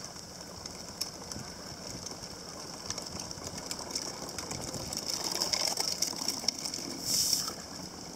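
A hand-pushed sorbent spreader cart clicking and rattling as it is wheeled over wet asphalt, with a broom scraping across the road near the end.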